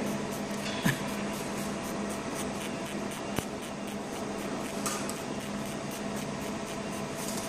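Laser marking machine with a rotary attachment running while it marks a bearing ring: a steady hum with a faint rapid ticking, and two sharp clicks, about one second and three and a half seconds in.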